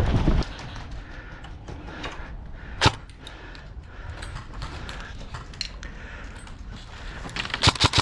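Airsoft guns firing: one sharp shot about three seconds in, then a quick burst of several shots near the end, with scattered lighter clicks in between.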